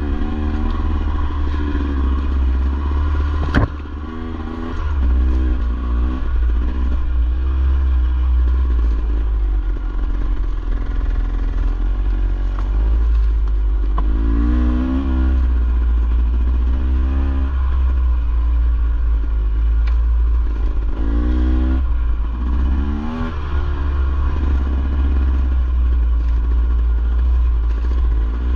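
KTM enduro dirt bike engine running on a trail ride, its pitch rising and falling again and again as the throttle is opened and closed. A sharp knock sounds about three and a half seconds in.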